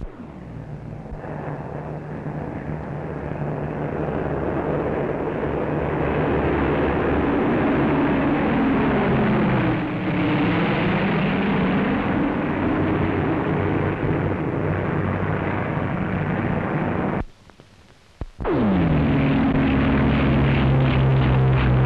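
Bristol Blenheim bombers' twin Bristol Mercury radial engines droning in flight, growing louder over the first few seconds, with the pitch dipping and rising again about ten seconds in as an aircraft passes close. After a short break about seventeen seconds in, a Blenheim's engines run loud and steady on the runway as it takes off.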